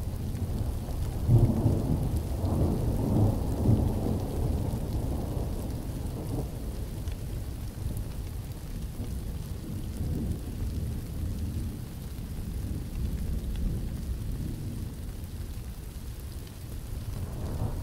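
Thunder rumbling in a thunderstorm, loudest about one to four seconds in and then rolling on more quietly, with rain falling.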